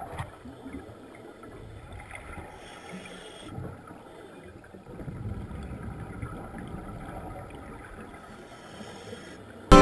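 Muffled underwater noise picked up through a waterproof camera housing: a steady low wash with no clear events. Music starts abruptly at the very end.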